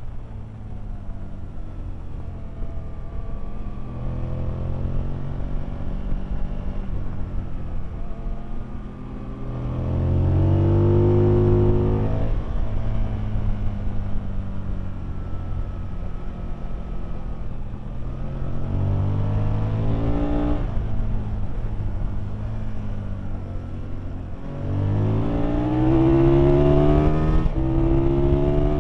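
Aprilia Tuono engine heard on board, revving hard under full throttle: the pitch climbs sharply around 10 s, 19 s and 25 s, each run cut off by a sudden drop as the throttle closes or a gear changes. A steady rush of wind and road noise runs underneath.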